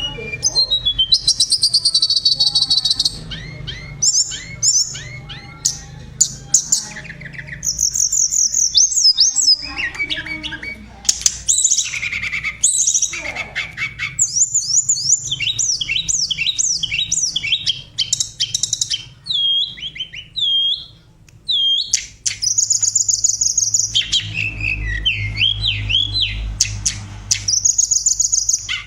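Flowerpecker (tledekan) singing a rapid, varied song of high chirps, trills and sharp down-slurred notes, broken by a few short pauses.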